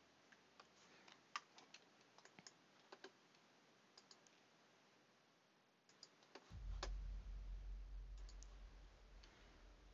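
Faint, scattered clicks of a computer keyboard, irregular and a few at a time. Past the middle a low rumble sets in, louder than the clicks, and slowly fades.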